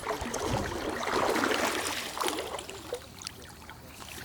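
Water trickling and splashing, louder through the middle and dying down near the end.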